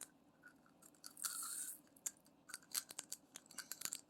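Small clicks and light rattling as diamond painting drills and their little plastic storage containers are handled, with a short rustle about a second in.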